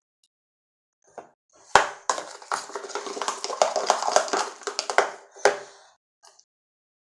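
Sticky homemade shampoo slime being mixed and worked in its container: a knock, then about four seconds of dense, wet clicking and popping, ending with one sharp click.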